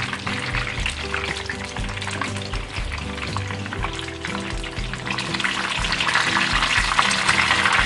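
Keema kachoris deep-frying in hot oil, a steady bubbling sizzle and crackle, just turned to fry their second side. Soft background music plays underneath.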